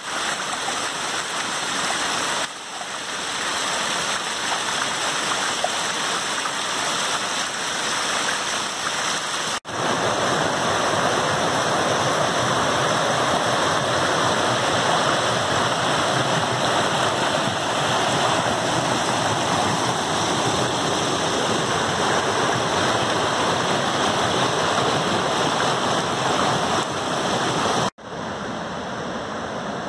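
Rushing creek water: small cascades and rapids pouring over boulders, a steady dense rush, with the creek running high after days of rain. The rush drops out for an instant about ten seconds in and again near the end, and comes back at a slightly different level.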